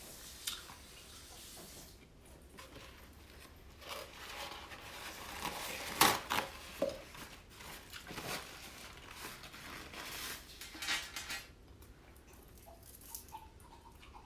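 Eating and food-handling sounds from a seafood meal: scattered clicks, knocks and rustling of utensils and food, with a sharp knock about six seconds in.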